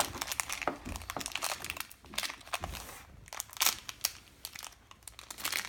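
Toy packaging crinkling and rustling in hand as Shopkins figures are unwrapped, with irregular crackles that come in spurts.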